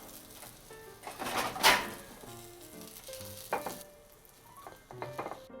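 Food sizzling as it fries in a pan, with a loud surge of sizzling about a second in and a shorter one about three and a half seconds in.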